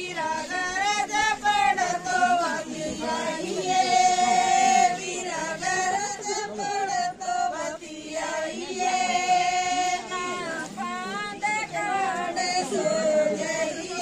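A group of women singing a folk song together without instruments, with long held notes.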